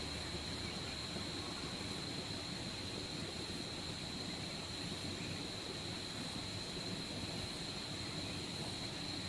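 Steady insect chorus: a constant high-pitched drone that does not change, over a low background rumble.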